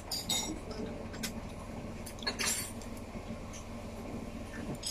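A few light clinks of a metal spoon and fork against a plate and a small sauce cup, with a cluster of them about halfway through, over a steady low room hum.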